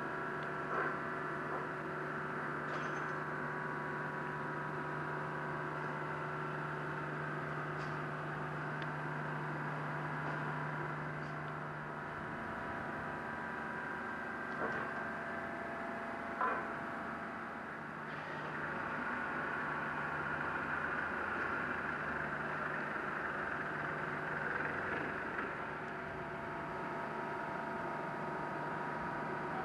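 Hoverspeed SR.N4 hovercraft's gas turbines running steadily: a continuous whine of several held tones over a low hum, with a few faint knocks. The low hum drops away about halfway through and comes back a few seconds later.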